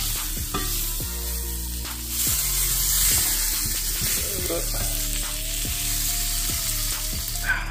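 Leatherjacket fillet frying in garlic butter in a frying pan: a steady hissing sizzle, with light clicks and scrapes of a metal spoon basting it in the pan.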